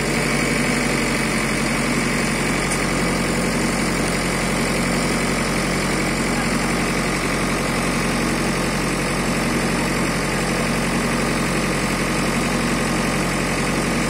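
JCB backhoe loader's diesel engine running steadily, a low even drone with no change in pace.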